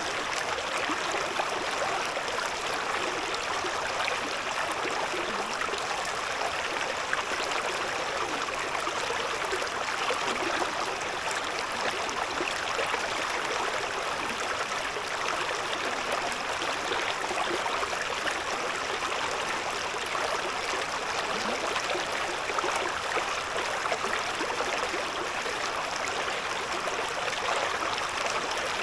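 A shallow river babbling steadily over stones, a continuous rush of water with fine splashing and gurgling detail.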